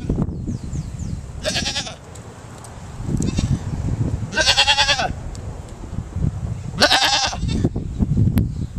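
A goat bleating three times, each a wavering, quavering call. The middle one, about halfway through, is the longest and loudest.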